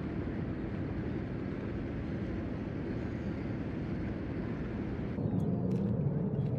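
Steady low engine rumble of boat traffic on the harbour water. About five seconds in it gives way to a slightly louder, deeper waterfront ambience with a few faint short high sounds.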